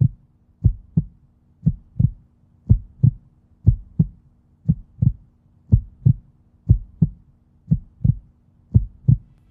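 Heartbeat sound effect: deep double thumps, lub-dub, about once a second, over a faint steady low hum.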